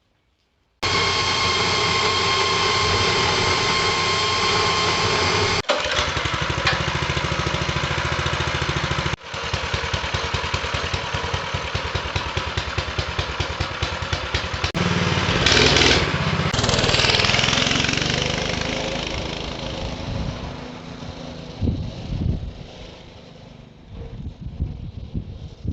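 Mini bike's small engine running, in several clips joined with abrupt cuts; after a loud stretch it fades away over the last several seconds.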